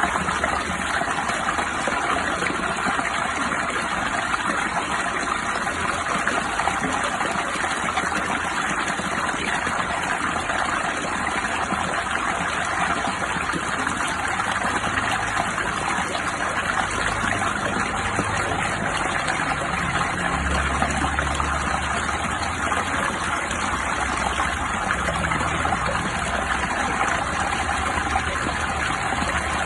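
Steady rushing and trickling water, an even, unbroken wash of sound.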